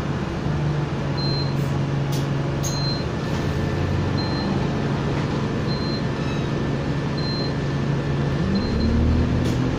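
Bus engine idling steadily, heard from inside the bus while it waits at traffic lights, with a short high beep repeating about once a second. About eight seconds in, the engine note rises as the bus pulls away.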